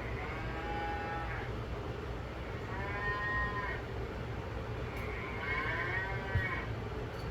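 An animal calling three times, each a drawn-out call of about a second that rises and then falls in pitch, over a steady low hum.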